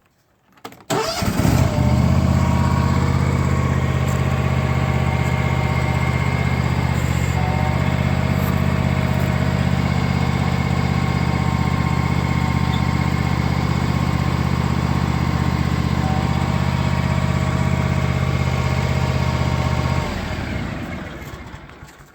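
John Deere X530 lawn tractor's V-twin engine starting after a short crank about a second in and running steadily, then shut off about 20 seconds in and running down over a couple of seconds.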